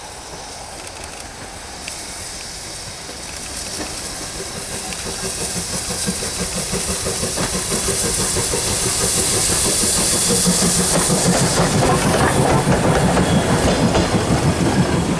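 Chichibu Railway steam locomotive C58 363 approaching and passing at work, its steam hiss growing louder through the middle. Near the end the coach wheels clatter rhythmically over the rail joints as the train goes by.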